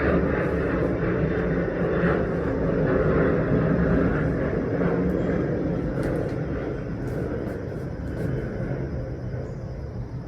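Airplane flying over, a steady engine rumble that slowly fades away through the second half.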